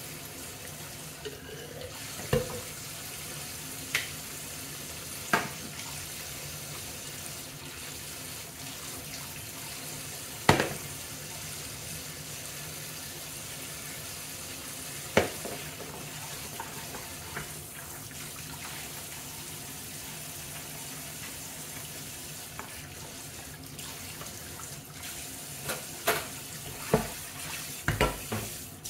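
Kitchen tap running steadily into a stainless steel sink during hand dishwashing, with a sponge scrubbing. Short sharp knocks now and then, several close together near the end, as dishes and utensils touch the sink.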